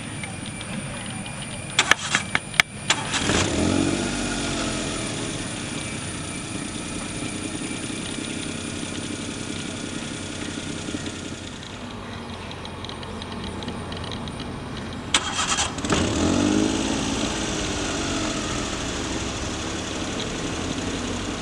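Steady jet engine noise from a Boeing 777 taxiing after landing. Twice a nearby motor vehicle engine cuts in over it, each time after a few sharp clicks, first about two seconds in and again near fifteen seconds. Each rises quickly and fades over several seconds.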